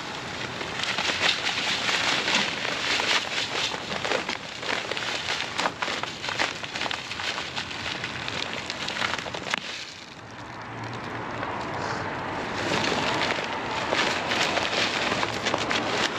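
Granular ice melt pouring and rattling into a spreader hopper full of rock salt, a dense crackle of many small granules that pauses briefly about ten seconds in and then starts again.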